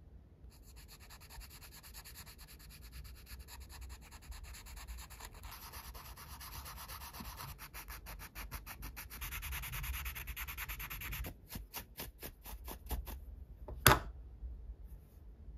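A 240-grit sanding sponge rubbed quickly back and forth over the chrome-plated plastic rim of a 1/12 scale model motorcycle wheel, a fast steady scratching that slows into separate strokes near the end. A single sharp knock follows just before the end.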